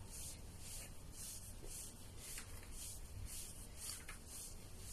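Hands rubbing over a child's back in tuina massage, pushing outward along the shoulder blades: faint, even swishing strokes about twice a second.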